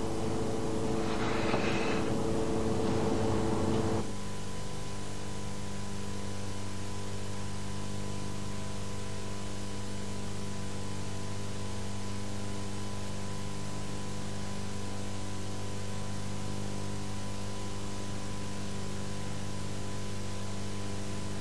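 Steady electrical hum with a few fixed tones under a constant hiss. For the first four seconds louder, noisy kitchen handling sounds sit on top, then they stop abruptly and only the hum remains.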